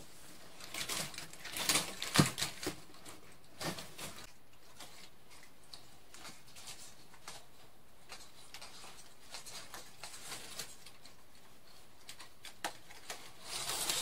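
Chicken wire and a plastic bin lid being handled while a zip tie is fitted, making light rustles and small clicks. The clicks cluster in the first few seconds, thin out to faint ticks, and pick up again near the end.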